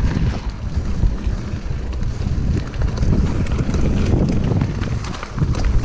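Wind buffeting the microphone of a camera mounted on a mountain bike rolling along dirt singletrack: a steady low rumble with scattered light clicks and rattles from the bike.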